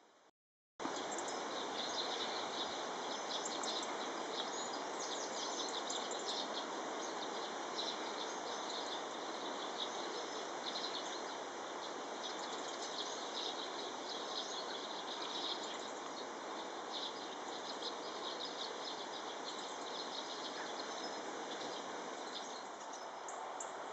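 Small birds chirping and twittering in quick short calls over a steady background hiss, the calls busiest in the first half. The sound cuts in abruptly after a brief gap about a second in.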